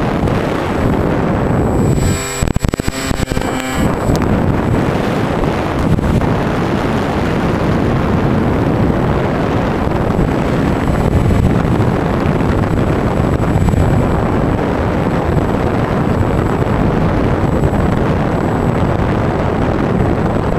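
Wind rushing over the onboard camera of a Bixler 2 electric RC plane in flight, mixed with the drone of its pusher motor and propeller. A thin, steady high whine runs under it, and the sound stutters and breaks up briefly about two seconds in.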